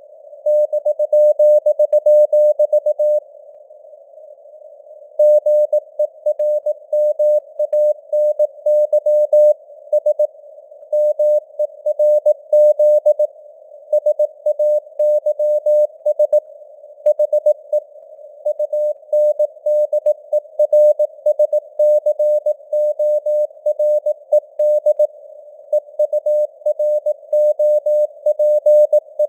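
Morse code (CW) sent at 18 words per minute as a steady mid-pitched tone keyed in short and long marks over a narrow band of simulated radio hiss. There is a pause of about two seconds near the start before the keying resumes.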